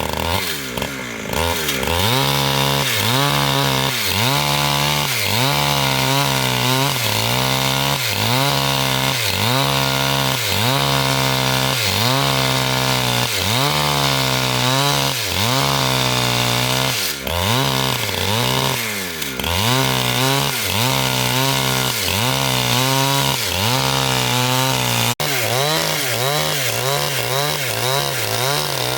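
Two-stroke chainsaw running at high revs while cutting wood. Its engine note dips and recovers roughly once a second as the chain bites into the log, and it runs steadier near the end.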